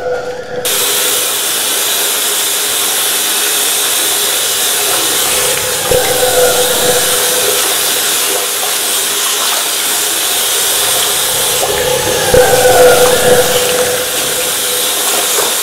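Water running from a bathroom sink faucet into the basin as a steady rush, with hands rubbing and splashing under the stream. The splashing swells louder about six seconds in and again around twelve to thirteen seconds. The rush starts abruptly just under a second in.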